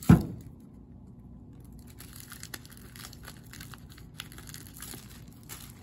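A roll of plastic air-cushion film thuds once onto a wooden table. About two seconds later comes faint, irregular crinkling and rustling as the plastic film is handled and its loose end worked free.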